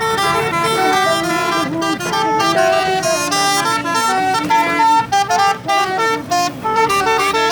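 Telolet musical horn playing a fast melody, several horn tones sounding together and stepping from note to note every fraction of a second.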